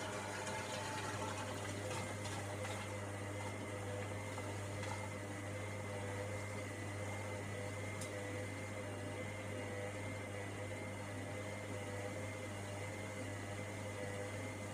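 Hoover Logic washing machine running mid-way through a cotton 60 cycle: a steady motor hum with a few faintly wavering tones and some water noise.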